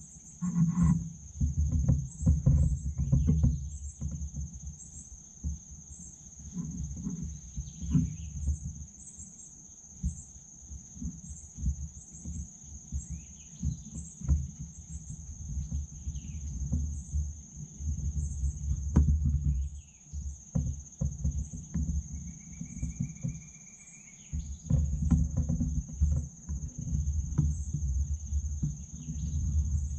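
A steady high insect drone, like crickets, runs throughout. Uneven low rumbling on the microphone comes and goes and is the loudest sound. A few short bird calls are heard, with a longer one about three quarters of the way in.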